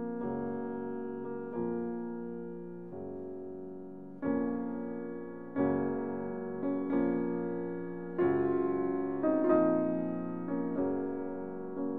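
Background piano music: slow chords, each struck and left to fade, a new one about every one and a half seconds.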